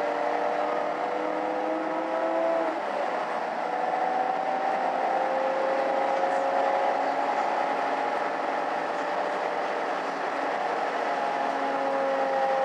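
Mercedes-Benz O530 Citaro city bus heard from inside while under way: its engine and drivetrain whine climbs slowly in pitch as it accelerates, drops sharply at a gear change about two and a half seconds in, then rises again.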